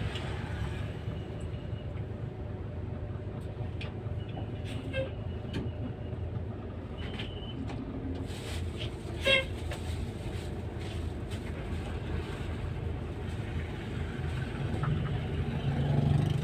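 Bus engine and road noise heard from inside the cabin: a steady low rumble that grows louder near the end. A short horn toot sounds about nine seconds in.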